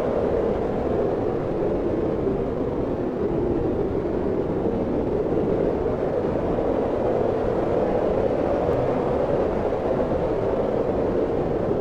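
Steady wind blowing, a low, even rushing noise with no gusts standing out.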